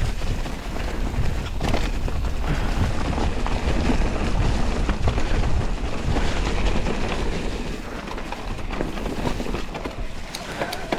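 Wind buffeting the microphone over the rumble of mountain bike tyres on a dirt trail, with scattered rattles and knocks from the bike.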